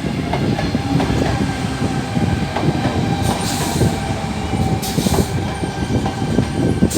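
Tangara electric multiple-unit train moving along the platform at low speed. A steady rumble of wheels and running gear with a faint whine and many small knocks. Short bursts of hiss come about halfway through, near five seconds and at the end.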